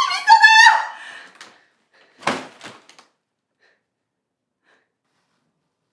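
A high-pitched shouted cry from a person that fades within the first second, then a single dull thump about two seconds in with a softer knock just after, then silence.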